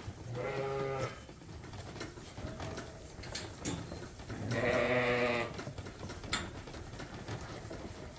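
A sheep bleats twice: a short bleat about half a second in, then a longer, louder bleat about four and a half seconds in, with a few faint knocks between.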